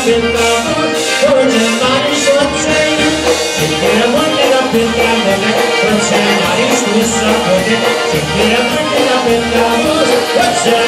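Live polka band playing: accordions and bass guitar over a steady beat.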